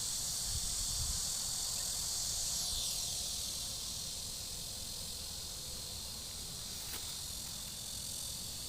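Steady, dense, high-pitched chorus of insects, easing a little about three seconds in, over a low rumble.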